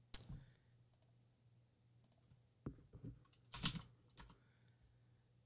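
Faint, scattered keystrokes and clicks on a computer keyboard and mouse, a few separate taps with a small flurry a little past halfway.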